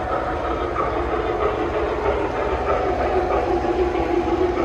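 Three-rail model train rolling past on its metal track: a steady, continuous running noise of wheels and motors on the rails.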